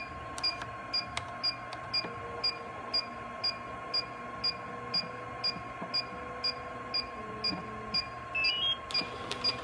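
Electronic beeping: short high beeps about twice a second, over a faint steady tone. Near the end a quick rising run of tones.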